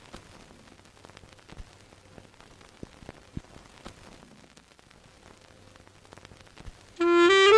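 Faint crackle and hiss with scattered pops, the surface noise of a vintage-film sound effect. About seven seconds in, jazz music starts, with a wind instrument playing a few rising notes.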